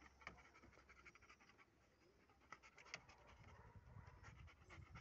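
Black Labrador sniffer dog panting faintly, with scattered light clicks and scrapes as it moves about the van floor.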